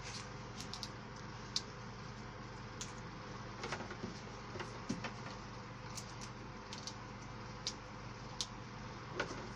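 Rose stems being handled and cleaned of leaves: scattered sharp clicks and snaps at irregular intervals, about one a second, over a steady low hum.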